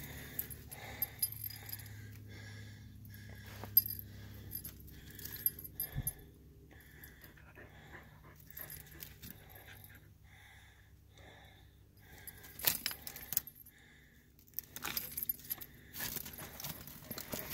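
A hiker's footsteps crunching over rocky ground, about two steps a second, with a light metallic jingle and occasional sharper clicks.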